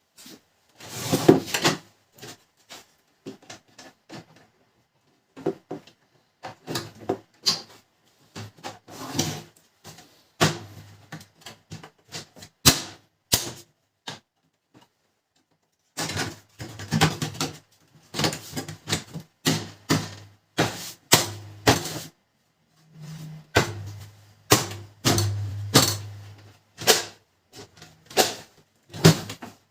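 Plastic housing parts of a laser printer clicking, knocking and snapping as covers and parts are fitted back on, in irregular bursts. A short low hum comes in about two-thirds of the way through.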